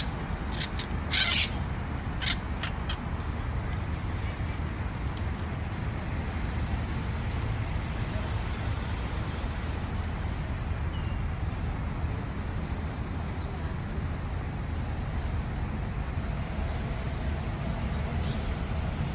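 Parrots squawking harshly a few times in the first couple of seconds, then giving way to a steady low background rumble.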